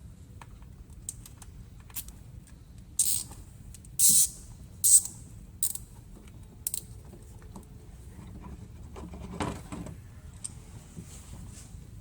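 A nylon zip tie being cinched around two hoses: a few short ratcheting zips as the tail is pulled through, with small clicks of handling around them.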